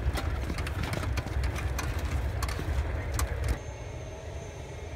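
Tank engine idling as a low rumble, with scattered clicks and knocks over it. About three and a half seconds in the rumble drops away, leaving a quieter steady background with a faint high whine.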